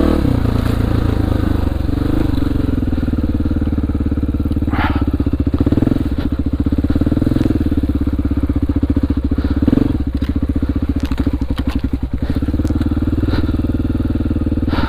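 2002 Honda XR400R's air-cooled four-stroke single-cylinder engine running at low revs as the dirt bike is ridden, the engine note shifting a little now and then. Occasional short knocks can be heard over it.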